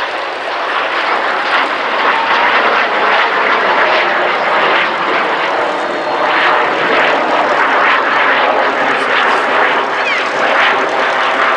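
Two BAC Jet Provost T.5 jet trainers flying overhead in formation, their single Viper turbojets giving a loud, steady rushing jet noise.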